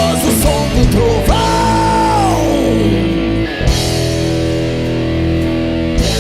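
Heavy metal band playing an instrumental passage: distorted electric guitars over drums with cymbal crashes. About a second in a long high note is held, then slides down in pitch.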